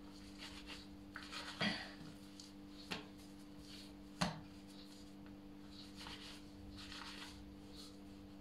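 Plastic bench scraper cutting and scraping bread dough on a floured granite countertop, with soft rubbing as the dough pieces are rolled into balls by hand. Three light knocks, about 1.5, 3 and 4 seconds in, over a faint steady hum.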